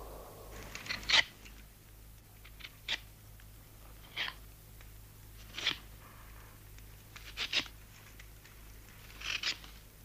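Knife shaving a piece of wood: six short scraping strokes, about a second and a half apart.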